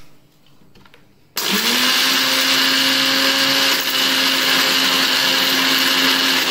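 Electric mixer grinder switched on about a second in, its motor spinning up with a quick rising whine and then running steadily at full speed while its stainless-steel jar grinds Oreo biscuits to powder.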